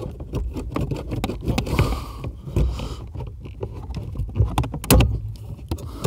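A metal hand tool scraping and clicking against the plastic cable tie that holds a clutch-pedal return spring compressed, as it is worked to cut the tie. There are irregular sharp knocks throughout, the loudest about five seconds in.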